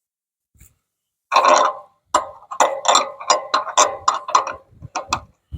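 A short rough burst, then a quick run of sharp knocks, about three a second.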